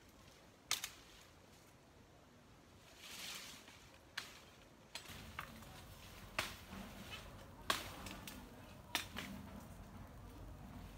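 About five sharp, separate cracks, spaced a second or more apart, the loudest about three-quarters of the way through. There is a short hiss about three seconds in and a low rumble from about halfway on.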